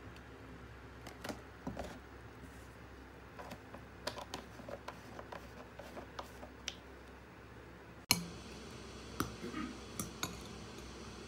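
Faint, scattered clinks and taps of glassware and a fork on a table: ice cubes in a glass mug and a glass bowl being handled. A sharper knock comes about eight seconds in, followed by a few more light taps.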